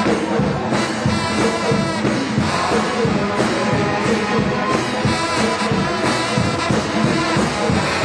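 Trombone shout band playing a gospel hymn: massed trombones over a sousaphone bass, with a steady beat.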